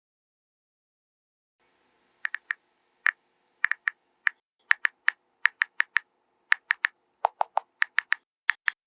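A series of about twenty short, sharp clicks in an uneven rhythm, starting about two seconds in, over a faint steady hum.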